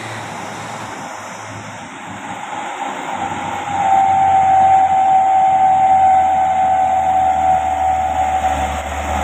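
Loaded six-wheel diesel cargo truck pulling uphill toward the listener, its engine rumble growing louder from about three seconds in. A steady high whistle-like tone rises over it about four seconds in and holds for about five seconds.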